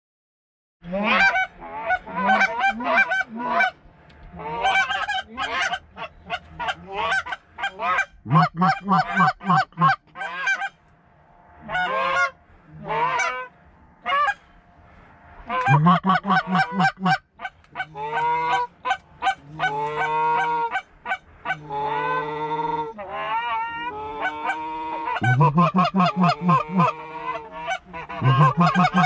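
Canada goose honks, clucks and moans in rapid, loud runs with short pauses, starting about a second in.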